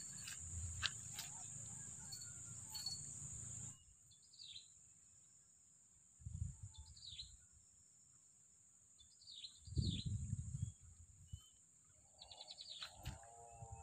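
Riverside ambience: a bird giving short falling chirps every second or two over a steady high-pitched insect buzz, with a couple of dull low thumps in the middle.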